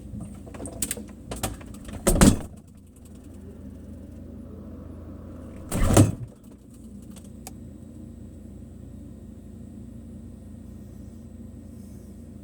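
Refrigerator door being handled: a few clicks, then two loud door sounds about two and six seconds in, over a steady low hum.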